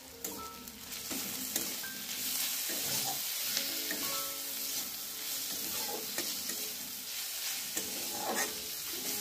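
Sliced onions with turmeric frying in oil in a metal kadai, sizzling steadily while a metal spatula stirs and scrapes them around the pan, getting louder about a second in as the stirring starts.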